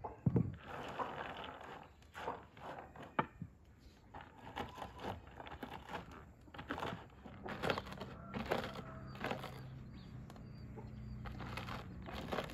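A wooden rolling pin crushing shelled walnuts on a wooden board, giving irregular crunching and cracking. There is a thump just after the start.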